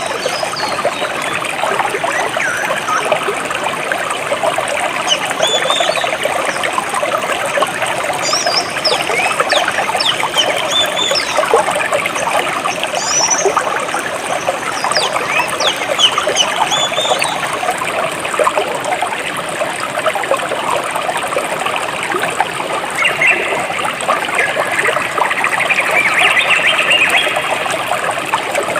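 A small stream trickling and burbling steadily over rocks, with birds chirping now and then above it. A busier stretch of chirping comes near the end.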